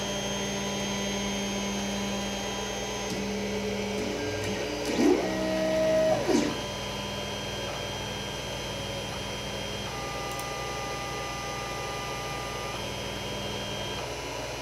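Creality CR-10S stepper motors whining as the printer homes its axes on a G28 command. The whine is a set of steady tones that jump to new pitches several times, with a rising and then falling glide about five to six and a half seconds in.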